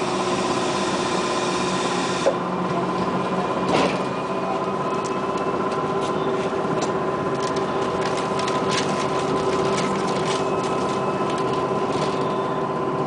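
Ride inside a Bogdan trolleybus: a steady electric whine from its drive equipment over road rumble, with a sharp knock about two seconds in, another near four seconds, and light rattles after that.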